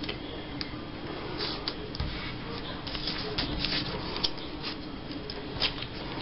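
Paper scraps being handled on a tabletop: soft rustling and crinkling, with a few light taps and clicks scattered through.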